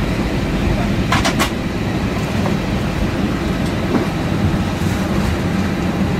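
Airbus A320 cabin noise while taxiing: a steady low rumble of engines and rolling wheels with rattling, and two short clatters about a second in.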